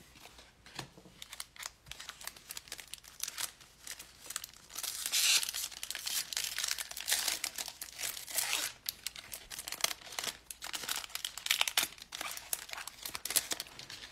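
Plastic wrapper of a 2020 Donruss football card pack being torn open and crinkled by hand: a dense, irregular run of crackles and rustles, loudest from about a third of the way in.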